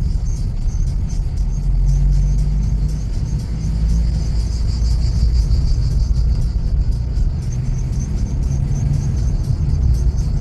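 Steady low engine and road rumble of a car heard from inside the cabin while it drives slowly, with a fainter high pulsing buzz over it.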